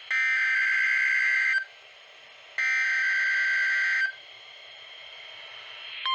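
NOAA Weather Radio SAME alert header: two bursts of warbling data tones, each about one and a half seconds long with a second's gap, then a faint hiss. It is the coded signal sent as a test of the NOAA Weather Radio warning system.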